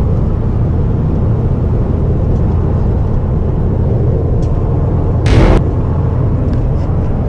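A car driving: a steady low rumble of engine and road noise, with a short loud hiss about five seconds in.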